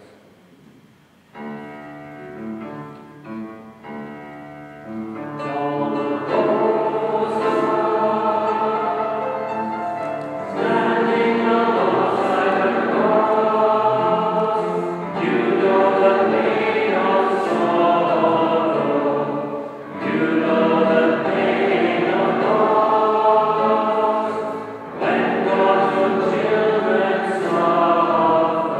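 A congregation singing a slow hymn in harmony, led by a man's voice, in phrases about five seconds long. It begins thinly and swells to full voices about six seconds in.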